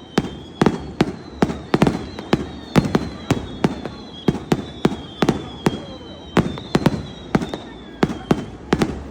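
Fireworks shells bursting in quick succession, about two sharp bangs a second, over a faint thin high whistle.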